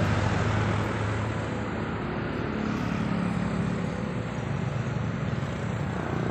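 A motor vehicle engine running, with a steady low hum over outdoor background noise.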